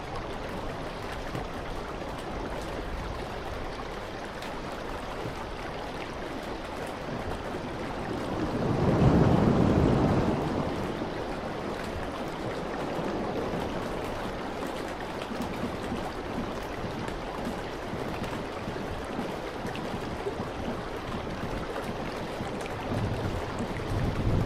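Ocean surf breaking over a rocky shore: a steady wash of waves, with one louder surge about nine seconds in.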